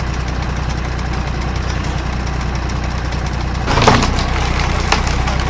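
Firewood processor's engine running steadily, with a loud crack of wood about four seconds in and a sharp knock a second later.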